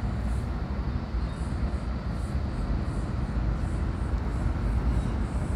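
Steady low rumble of wind buffeting the camera microphone on a moving kayak, with faint drips and splashes from the paddle repeating every half second or so.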